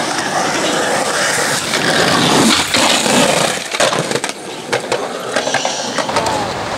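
Skateboard wheels rolling on a concrete skatepark surface, with scattered clacks and knocks from the board. The sound eases off a little after about four seconds.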